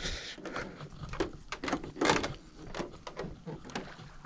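Irregular knocks and light rattles, a few a second: footsteps on wooden dock boards and the handling of a camera carried while walking.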